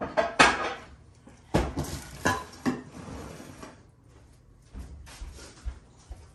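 Kitchen dishes and utensils clattering: a quick run of sharp clinks and clanks over the first three seconds or so, then a few lighter taps.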